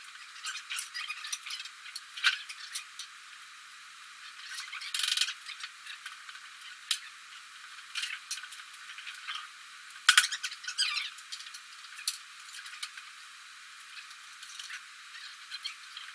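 Irregular clinks, clicks and short scrapes of hand tools and metal parts being worked during a tractor transmission teardown. The loudest cluster comes about ten seconds in. The sound is thin, with no low end.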